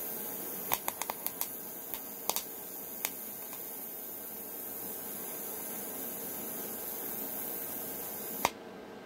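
TIG welding arc hissing steadily as a gear is fused to its shaft, with several sharp crackles in the first three seconds. The arc cuts off with a click near the end.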